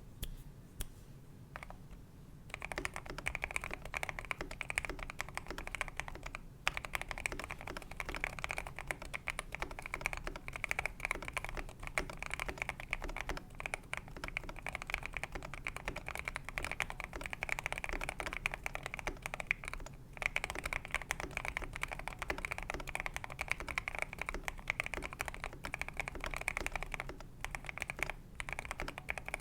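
Steady fast typing on a Next Time 75 custom mechanical keyboard with lubed Akko Jelly Black linear switches, PBT keycaps and an aluminium plate, dampened with foam and tape mods. A few scattered keystrokes open it, then dense keystrokes run on with two brief pauses.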